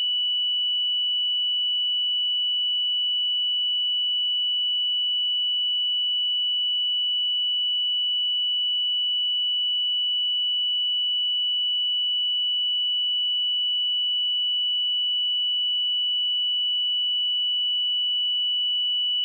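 A pure 2958 Hz sine-wave test tone, held steady at one pitch and level.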